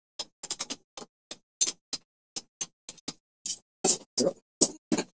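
Sharp metallic clicks, a few a second and unevenly spaced, growing louder and heavier over the last second and a half: hand work on the 1/4-20 hex-head bolts that fasten the aluminium C-channel stiffener to the mill's Y axis.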